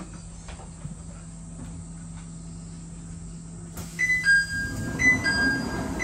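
Steady low hum and rumble inside the front cab of the Hakone Tozan Cable Car funicular as it runs down the track. From about four seconds in comes a high two-note chime, repeating about once a second.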